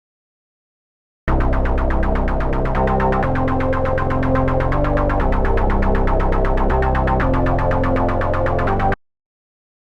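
Ableton Drift software synthesizer preset playing a rapidly pulsing synth sound over a line of changing bass notes. It starts about a second in and cuts off abruptly near the end.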